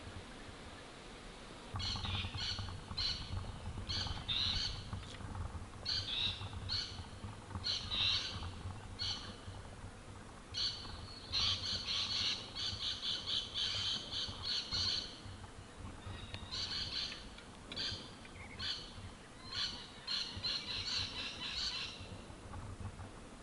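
A wild bird squawking over and over in harsh, high notes, starting about two seconds in. The notes come in short groups, with longer rapid runs about halfway through and again near the end.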